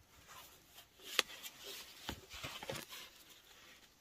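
Faint paper handling as the pages of an old coloring book are turned: a few soft rustles and crackles, the sharpest about a second in.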